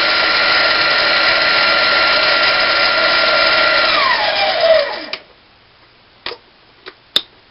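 Harbor Freight 7x10 mini metal lathe running with a steady whine, then switched off about four seconds in, its whine falling as the spindle and chuck spin down to a stop. A few light clicks follow near the end.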